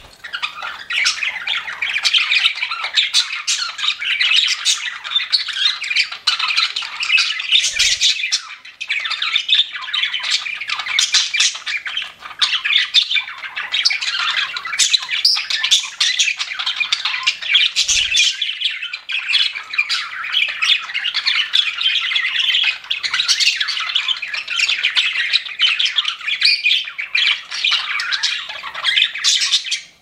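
Pet budgerigars chattering and warbling without pause, a dense run of quick chirps, clicks and squawks.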